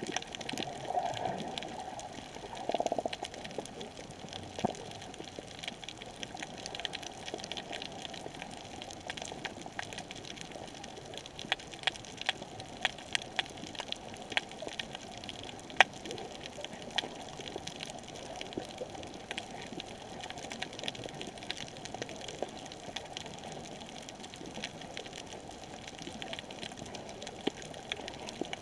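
Underwater ambience on a coral reef: a steady water hiss with many scattered sharp clicks and crackles. The clicks come thickest around the middle.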